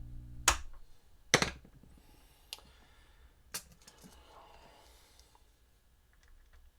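Amplifier hum from the plugged-in guitar cuts off with a loud click about half a second in, followed by a second loud click, then a few lighter clicks and faint handling noises.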